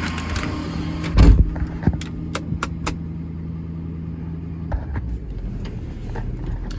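The truck's 6.7 Power Stroke diesel engine idling steadily. A hiss dies away about a second in, followed by a heavy thump and several sharp clicks, and the engine note shifts near the end.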